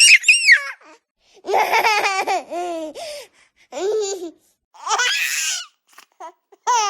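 Baby laughing in several bursts of high-pitched giggles, each falling in pitch, with short silent pauses between them.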